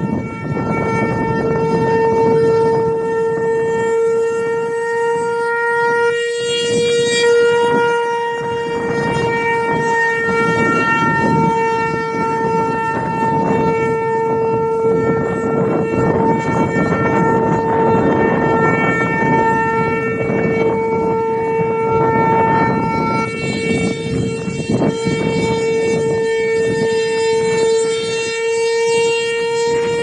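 Outdoor tornado warning siren sounding one long, steady, unbroken tone, its upper overtones fading in and out.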